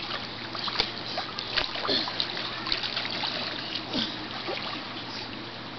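Swimming-pool water splashing and sloshing as two children grapple in it, with light splashes here and there.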